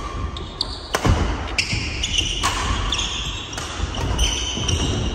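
Badminton doubles rally: several sharp racket hits on the shuttlecock, shoes squeaking on the wooden court floor, and dull footfalls.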